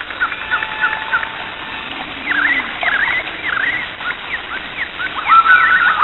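Birds calling: a run of short chirps and swooping calls, joined about five seconds in by a repeated note that jumps up and is held briefly.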